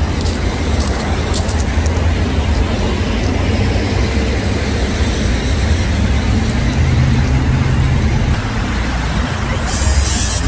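Heavy diesel truck engines running steadily, with a short burst of hiss near the end.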